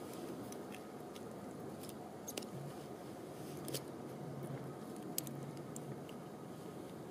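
A few short, sharp clicks and snips from small fishing tools and tackle being handled in gloved hands, over a steady background hiss.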